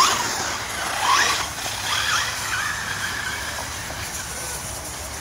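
Radio-controlled truggies racing on a dirt track, their motors whining up and down in pitch as they accelerate and brake. It is loudest as one passes close at the start and again about a second in.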